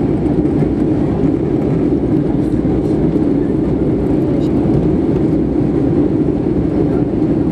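Steady cabin noise of an Airbus A320-212 in flight: the constant deep rush of airflow and its CFM56 engines, heard through the cabin and unchanging throughout.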